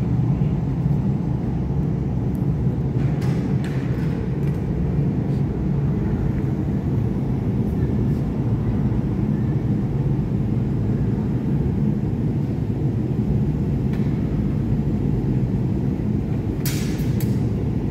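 Steady low rumble of a glassblowing studio's gas-fired furnace and glory hole burners running, with a few light clicks and clinks, a small cluster of them near the end.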